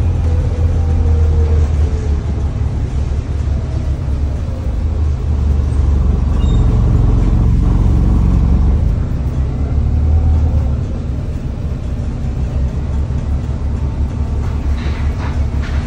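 Bus on the move, heard from inside the passenger saloon: a steady low rumble of engine and road noise, a little quieter after about ten seconds.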